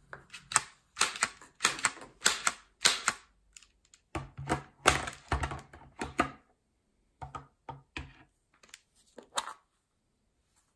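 Hard plastic clicking and clacking in uneven flurries: a toy grabber's claw snapping shut and knocking against plastic surprise eggs, and the plastic eggs being handled and pulled open. The clicks are busiest in the first half and grow sparse towards the end.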